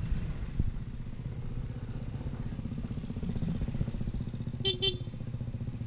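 Yamaha NMAX scooter's engine running steadily with an even firing pulse, with a single knock about half a second in. Near the end a horn beeps twice in quick succession.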